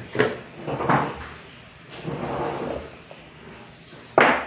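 Handling noises from a smartphone's cardboard retail box being picked up and moved on a table: a couple of knocks, a sliding scrape, then one sharp, loud knock near the end.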